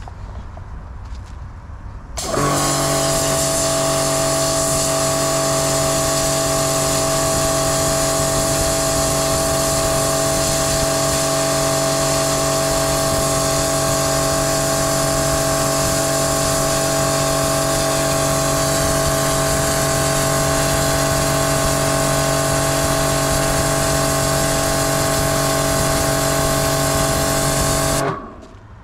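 Bormann Pro BPW 5000 electric pressure washer running and spraying: a steady motor-and-pump hum with a constant hiss. It switches on abruptly about two seconds in and cuts off sharply just before the end, as when the spray-gun trigger is pulled and released.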